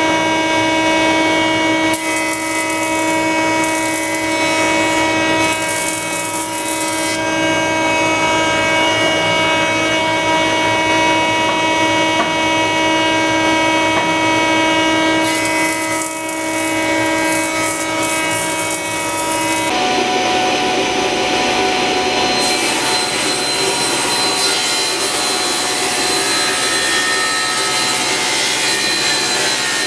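Brother jointer running with a steady whine, its cutterhead hissing through walnut boards as they are edge-jointed in two passes. About two-thirds of the way through it changes to a table saw ripping walnut, a noisier cutting sound.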